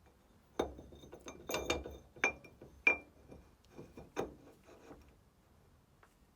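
Hard metal parts clinking and knocking together by hand, a string of irregular light clinks with short bright rings and one sharp loud clink about three seconds in, dying away after about five seconds: bolts and lock tabs going onto a Classic Mini's new crown wheel.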